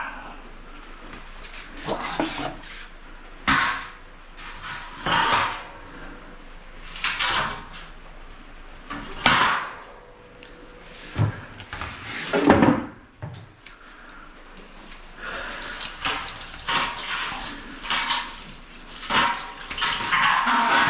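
Irregular knocks, clatter and scraping of hard washing-machine parts being handled and pried apart, about one every one to two seconds, during disassembly of a top-loading washing machine's inner-tub base.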